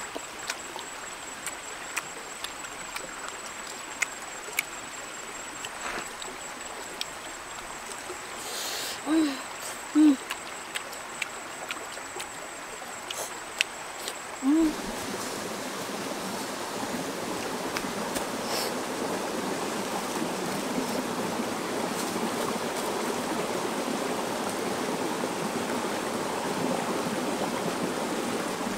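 Stream water running steadily, cutting in abruptly about halfway through. Before that, a quieter stretch with scattered sharp clicks, a thin high steady tone, and three short hoot-like tones, the last just before the water sound starts.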